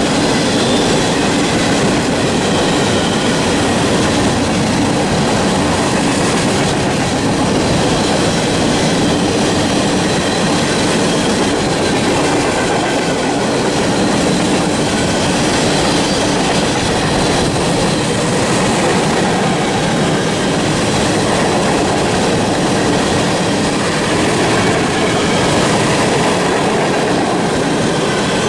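Freight train cars rolling past on the rails: a steady, loud noise of steel wheels on track that does not change.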